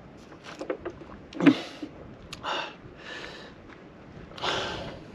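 A few light clicks and a knock, then a person breathing out heavily three or four times, the last breath the loudest.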